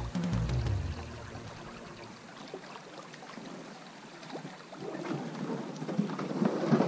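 River water splashing around a drifting boat with rain falling on the surface, growing louder in the last two seconds. Background music fades out in the first couple of seconds.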